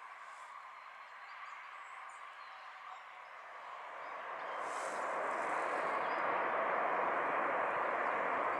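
Jet airliner's engines heard as a steady rushing noise during the landing rollout. The noise swells over a couple of seconds, about three to five seconds in, then holds loud.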